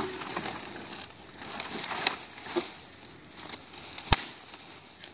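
Dry twigs and grass crackling and rustling as they are handled and moved aside, with one sharp knock about four seconds in.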